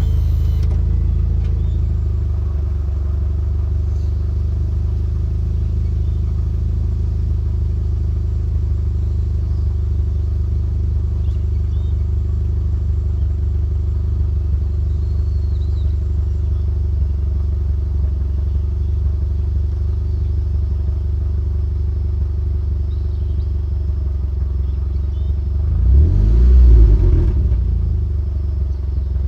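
Mitsubishi Lancer Evolution X's turbocharged 2.0-litre four-cylinder idling steadily through its exhaust, with one quick rev that rises and falls near the end.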